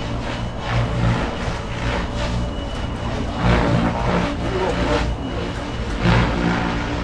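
Goosky RS7 electric radio-controlled helicopter in flight, its rotor noise swelling into louder whooshes about 3.5 and 6 seconds in, over a steady low rumble.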